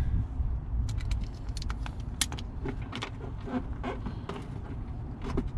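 Small scattered clicks and light rattles of mounting screws and hardware being handled, with creaks from the flexible plastic mud flap as it is held and pressed against the wheel arch, over a low steady rumble.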